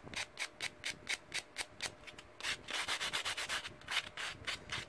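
A nail buffer block rubbed quickly back and forth across fingernails, a dry scratchy stroke several times a second. This is buffing the natural nail surface before acrylics are applied.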